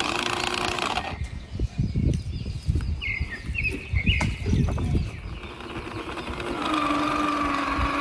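Irregular knocks and scrapes of a toy truck's plastic body in sand as it is handled and set back on its wheels, with a few short squeaks. Then, about six and a half seconds in, the steady whine of its small electric drive motor as it drives through the sand.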